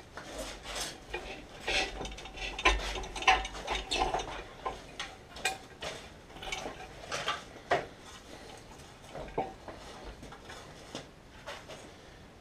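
Irregular metallic clinks, clatters and rattles of hand tools and metal fittings being worked in a car's engine bay, with a few sharper knocks.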